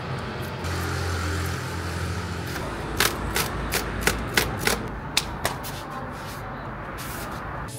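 A quick run of sharp clicks and taps over a steady low background hum.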